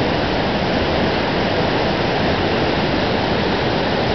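A river in flood rushing past: loud, steady noise of fast, high water.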